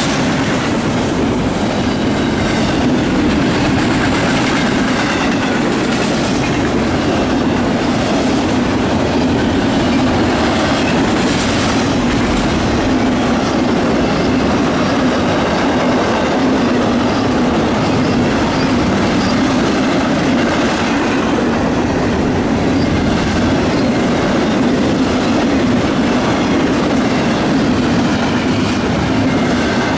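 A fast CSX double-stack intermodal freight train's cars passing close by: the steel wheels run on the rails in a steady, loud rumble that does not let up.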